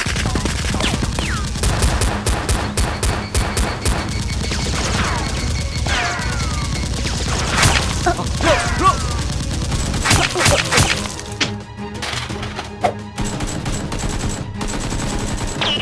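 Action background music with added gunfire sound effects over it: a rapid burst of shots about two seconds in, then single sharp shots and falling swooshes later on.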